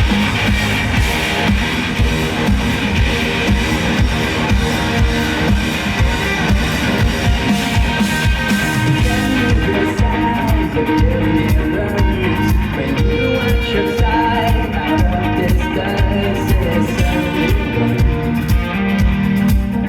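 Rock band playing live through a PA: guitars over a drum kit keeping a steady beat. The bright top of the sound thins out about ten seconds in.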